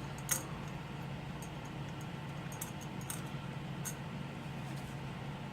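Light clicks and taps of small tools and glass pieces being handled during an iPhone 4 screen separation, the clearest about a third of a second in and a few more scattered later, over a steady low hum.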